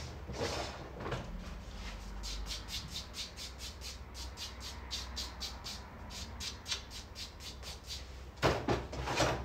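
Nail buffing block rubbed lightly back and forth over a cured gel top coat, a quick scratchy rhythm of about five strokes a second, mattifying the glossy surface. A few louder knocks come near the end.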